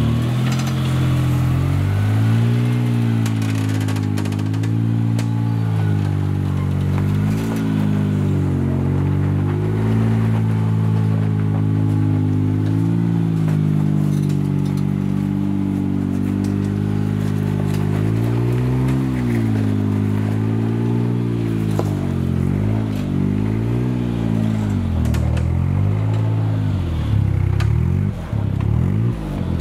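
Modified Suzuki Jimny JA11's engine pulling at low revs as it crawls up a steep rutted trail, the revs rising and falling again and again as the throttle is worked over the bumps.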